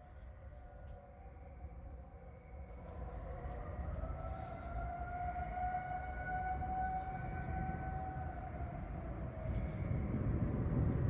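Outdoor warning sirens sounding the wavering attack signal, the one usually kept for nuclear attack, rather than the steady alert tone. The tone swells louder through the first several seconds. Crickets chirp steadily and faintly in the background.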